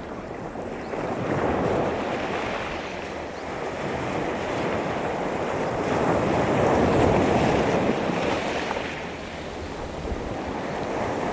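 Sea waves breaking and washing over a pebble beach, the pebbles rattling as the water surges and draws back. The sound swells and ebbs, with the biggest surge about halfway through.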